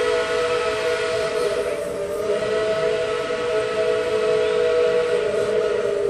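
Tweetsie Railroad No. 12's narrow-gauge steam locomotive whistle blowing one long blast, a steady chord of several notes with a hiss of steam beneath it.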